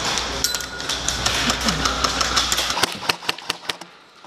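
A steady rumbling noise that cuts off suddenly near three seconds in. A quick string of sharp cracks follows: airsoft gun shots, several a second.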